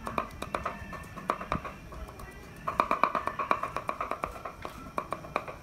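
Cleaver chopping garlic on a cutting board: quick repeated knocks, a short burst at the start, a pause, then a faster, louder run from about halfway through.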